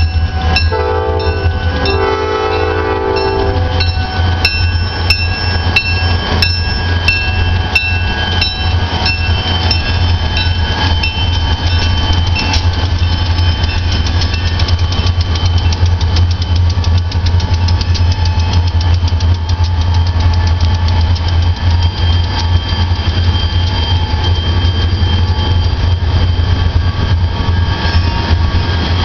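EMD GP40 and GP40-2W diesel locomotives passing close by: the horn sounds in broken blasts and stops a few seconds in, then a bell rings in quick repeated strokes over the steady deep rumble of the diesel engines.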